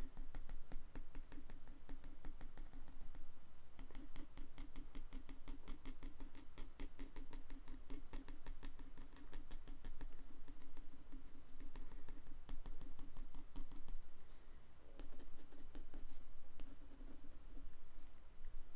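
A white pencil scratching on paper in rapid, repeated shading strokes, with a couple of short pauses.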